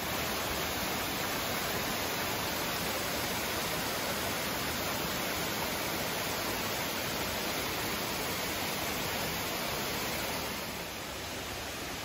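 Steady rushing of small waterfalls running down the sinkhole's wall, easing slightly a little before the end.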